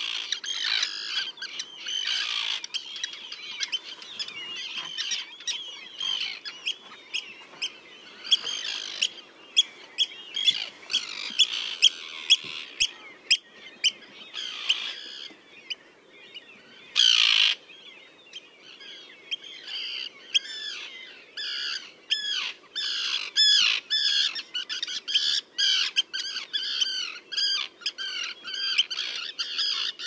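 Common tern colony calling: many overlapping harsh calls and short sharp notes from adults and chicks, with one louder harsh burst a little past halfway.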